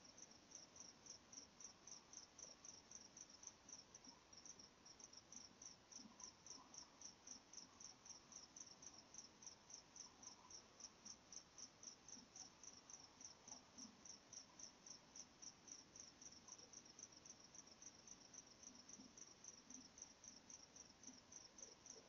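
A cricket chirping faintly and steadily in an even rhythm, about three high chirps a second.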